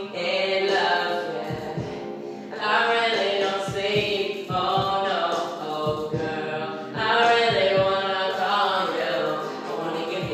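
A man singing unaccompanied into a handheld microphone, in long held phrases with short breaks between them.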